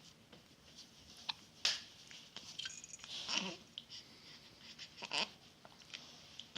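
Faint hiccups, a few short sharp ones, with small squeaky sounds between them.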